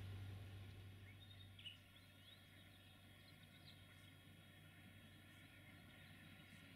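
Near silence: faint outdoor ambience with a few faint bird chirps in the first few seconds.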